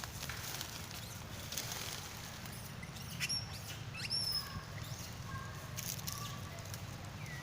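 Two short, high-pitched animal squeaks about three and four seconds in, over rustling and light clicks and a steady low hum.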